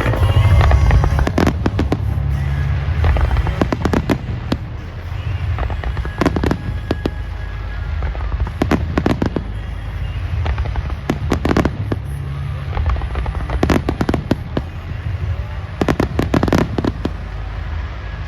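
Aerial fireworks bursting: many sharp bangs, some in quick pairs and clusters, over a continuous deep rumble from the explosions.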